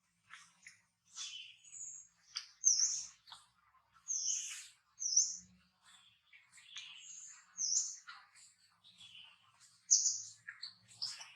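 Short, high-pitched chirps and squeaks from a small animal, many in quick, irregular succession.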